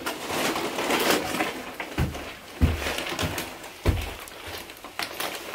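Plastic mailer bags crinkling and rustling as a stack of packages is carried, most busily in the first two seconds, with three dull thuds of footsteps on carpeted stairs about two, two and a half and four seconds in.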